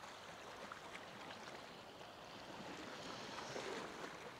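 Faint, steady wash of calm sea water lapping against a rocky shore.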